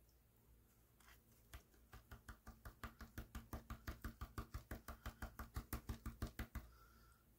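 A hand rapidly tapping the rim of a plastic gold pan during panning, to settle the heavy black sand to the bottom. The taps come about six a second, start about a second and a half in, grow louder, and stop about a second before the end.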